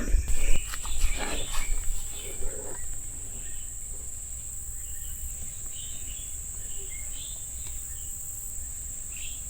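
Insects, crickets or cicadas, keeping up a steady high-pitched drone, with a few soft knocks and rustles in the first two seconds.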